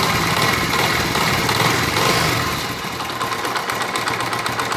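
Honda single-cylinder four-stroke motorcycle engine running with a worn timing chain rattling in the cylinder head. The engine comes down from a rev toward idle about two and a half seconds in, leaving a fast, even ticking.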